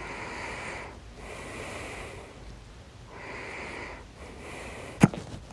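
A person breathing noisily in and out, four long breaths, then one sharp, loud hiccup about five seconds in.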